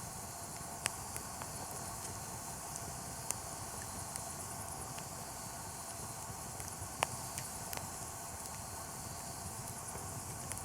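Wood campfire crackling, with a few sharp pops (the loudest about seven seconds in) over a steady hiss.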